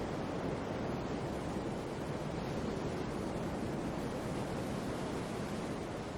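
Sea waves: a steady rush of surf, heaviest in the low range, fading slightly near the end.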